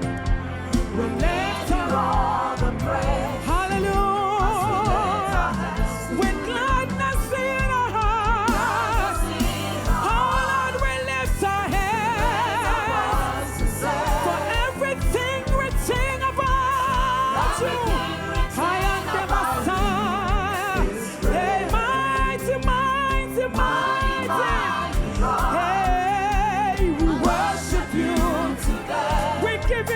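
Gospel worship song: sung vocals with vibrato over a steady band accompaniment.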